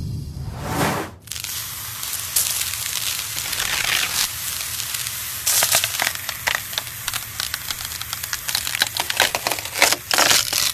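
A kitchen knife blade cutting down into a whole kiwi fruit through its fuzzy skin: after a short swish about a second in, a dense, crunchy crackle of many small clicks that grows louder and denser toward the end.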